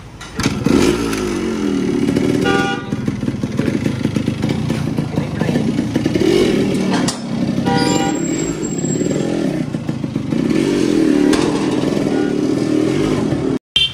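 Yamaha RX100's two-stroke single-cylinder engine running, its revs rising and falling several times.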